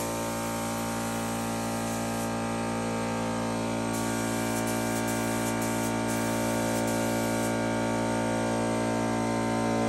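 Air-fed paint spray gun hissing as a light coat of primer goes on. The gun runs for about two seconds, then again in short on-off bursts from about four seconds in, over a steady hum.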